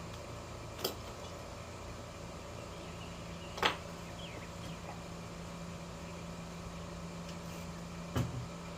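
Three short, sharp clacks of tools and parts being handled while a car's radiator fan shroud is taken off, the loudest about midway, over a steady low hum.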